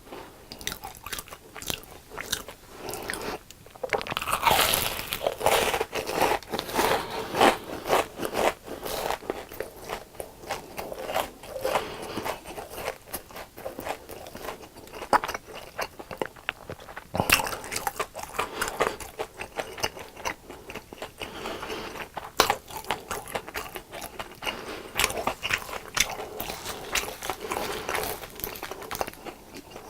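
Close-miked biting and chewing of crunchy deep-fried food, a dense run of irregular crunches and crackles.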